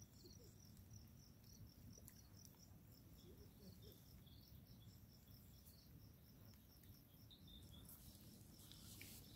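Near silence: faint outdoor ambience with an insect chirping faintly, a high, evenly repeating chirp about four times a second.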